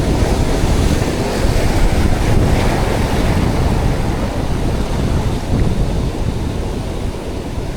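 Strong wind buffeting the microphone, with surf breaking and washing behind it as a steady rushing noise.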